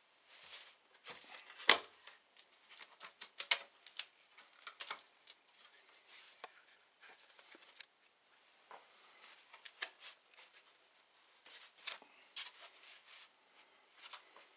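Irregular small clicks, taps and short scrapes of hands and tools working on a laptop's internals during a hard-drive swap, with two sharper clicks about two and three and a half seconds in.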